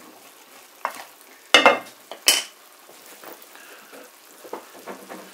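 Sliced onions and vegetables sizzling in a pot as a wooden spoon stirs them, with several sharp knocks of the spoon against the pot, the loudest about one and a half and two seconds in.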